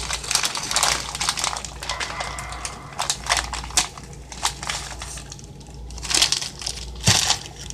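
Plastic food packaging crinkling and crackling as it is handled and pulled open, in irregular bursts that are loudest near the end.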